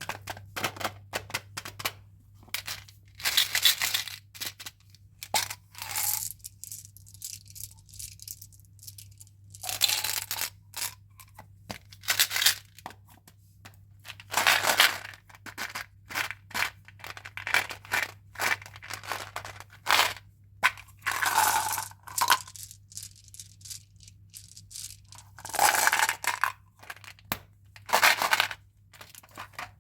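Candy packaging handled up close: wrappers crinkling and tearing in repeated bursts, with small clicks and taps between them, over a faint steady low hum.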